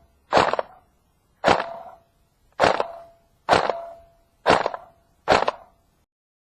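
Airsoft gun firing six single shots, about one a second, each a sharp crack with a brief ring after it.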